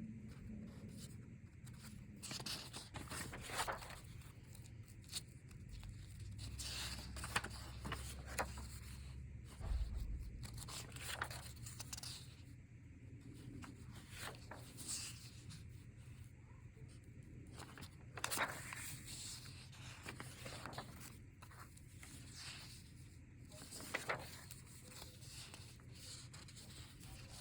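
Sheets of paper rustling and sliding in short, irregular strokes as pages in a folder are handled and turned, over a steady low room hum.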